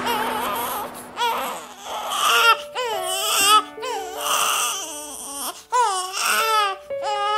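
Newborn baby crying in a string of short, wavering wails, over soft music with held notes.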